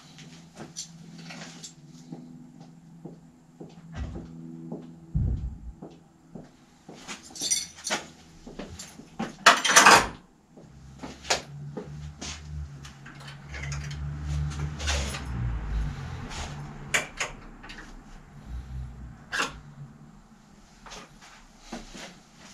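Workshop handling noises: scattered knocks, clicks and clatter of things being picked up and moved about, with one loud clatter about ten seconds in.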